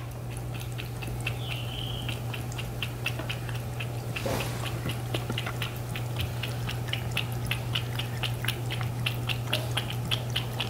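A cat lapping water from a ceramic pet drinking fountain, a steady run of quick wet licks at about four a second. Under it, the fountain's pump hums steadily.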